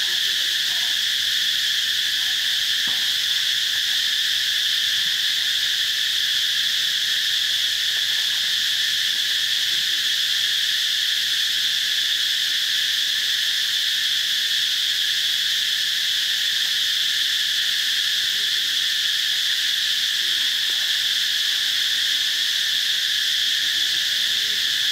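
Steady chorus of insects, a continuous high-pitched buzz that holds at an even level without breaks.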